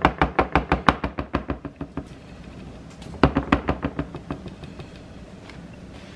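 Aluminium tray of cassava cake batter knocked rapidly against a wooden board to level the batter: fast, even knocks about six or seven a second, stopping about two seconds in, then a second shorter run a little past the middle.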